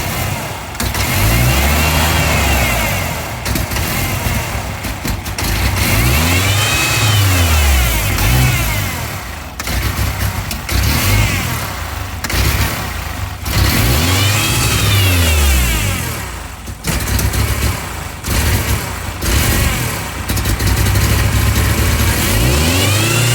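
1999 Ford Ranger 2.5-litre engine running with a massive vacuum leak, revved up and let fall back to idle several times, a few seconds apart.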